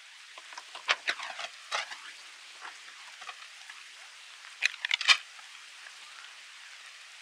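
A patter of water drops like light rain, with clusters of louder, sharp, ringing drips about one second in, near two seconds and about five seconds in.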